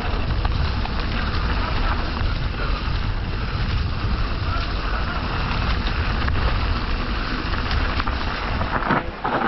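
Wind rumbling on the microphone of a camera on a mountain bike riding a dirt trail, with steady rolling tyre and trail noise and a few light knocks.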